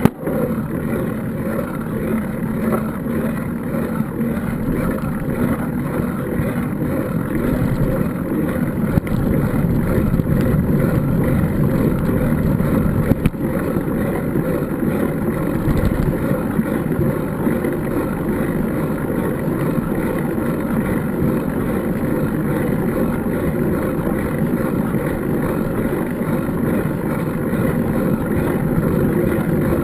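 Steady low rumbling noise of wind buffeting the microphone, even throughout.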